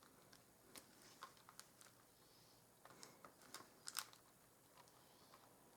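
Faint, irregular small clicks and crackles as a plastic lid is pressed down through soft air-dry clay onto parchment paper to cut out rounds, the loudest click about four seconds in.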